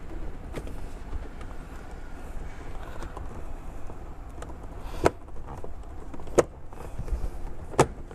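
Plastic gear-shifter surround trim on a 2018 Perodua Myvi's centre console being pressed back into place: scattered small clicks and handling rustle, then three sharp snaps about a second and a half apart in the second half as the trim clips seat.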